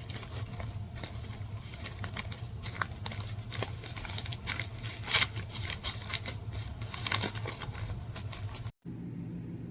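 A new travel backpack being unwrapped and handled: irregular crinkling and rustling of packaging and fabric, with a few louder crackles about halfway through. A steady low hum runs underneath, and the sound cuts off abruptly near the end.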